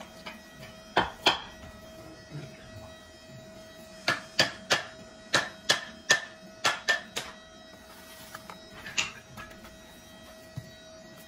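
Hands handling and tapping a wrapped bundle of synthetic paintbrush bristles, giving sharp clicks and taps: two about a second in, then a quick run of about nine, then one more, over a faint steady hum.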